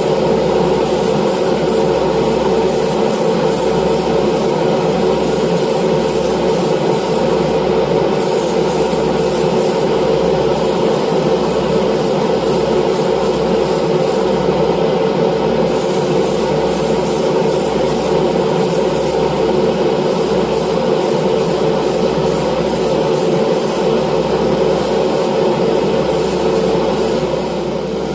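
A motor running steadily with a constant hum over a wide hiss; the high part of the hiss drops out briefly twice.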